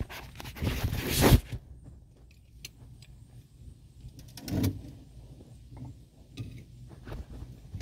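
Handling noise as a steel C-clamp is brought up to a brake caliper to compress its piston. A loud rustling scrape runs for about a second just after the start and ends in a sharp clack, there is a single knock about halfway, and light metallic clicks follow.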